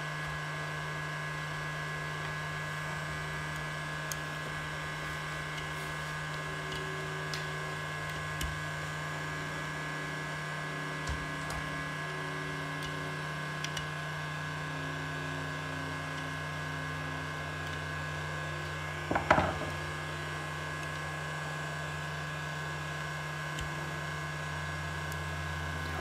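Screwdriver tips prying at a seatbelt buckle's plastic cover, making a few small clicks and one louder click and scrape about 19 seconds in. A steady electric hum runs underneath.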